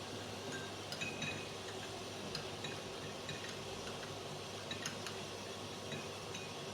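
A spoon clinking lightly against a small bowl now and then while herbal powder is stirred into a spoonful of honey.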